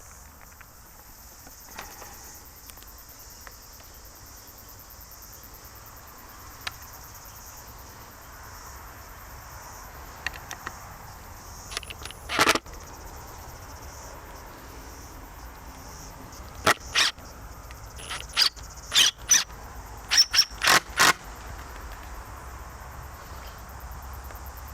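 A series of short, sharp squeaks and knocks from a camera pole being raised back into place, a few at first and then a quick cluster past the halfway point, over a steady chirring of insects.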